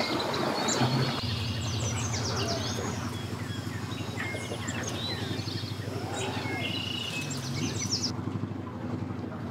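Outboard motor running steadily at the ramp with a low hum that grows stronger about a second in, its propeller churning the water as the bass boat is powered onto its trailer. Birds chirp repeatedly over the engine.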